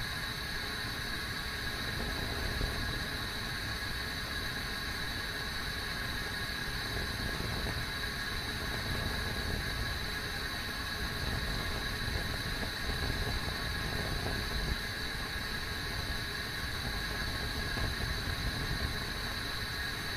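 Kettle heating water: a steady rumbling hiss with a faint steady high tone over it.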